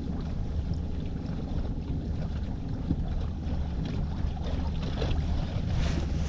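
Small fishing boat's motor running with a steady low hum, with wind rumbling on the microphone.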